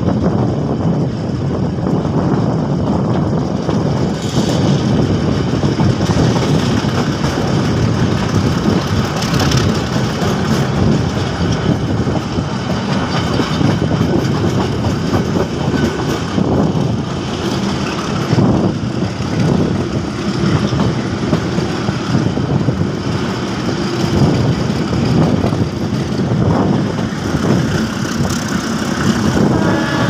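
Diesel-hauled commuter train on the move, a steady rumble of engine and running gear.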